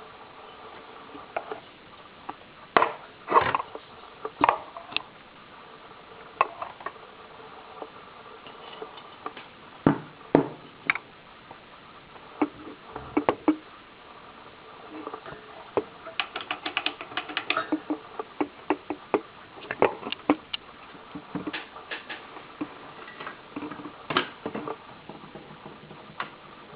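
Irregular clicks, taps and light knocks of small hard objects being handled, with a denser run of quick little clicks about two thirds of the way through.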